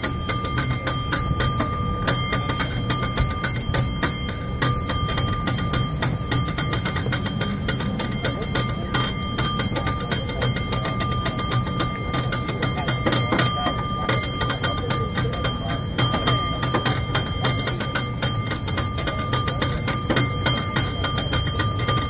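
San Francisco cable car bell rung by hand with its overhead pull cord, struck many times a second in a fast, rhythmic pattern, its ringing tones carrying on between the strokes.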